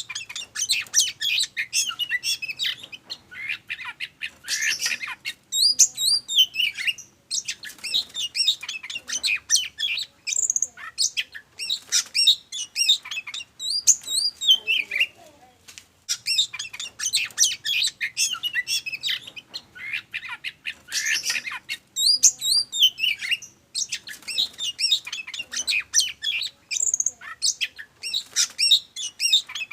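Oriental magpie-robin singing a long, fast run of varied whistles, chirps and harsh notes, in phrases of a few seconds broken by short pauses.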